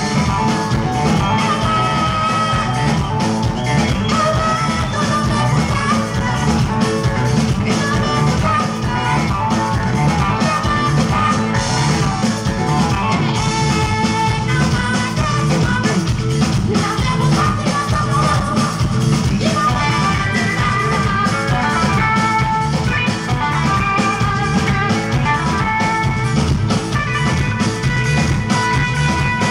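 A Tuareg desert-blues band playing live: lead electric guitar over a steady drum-kit beat, with a male voice singing into a microphone.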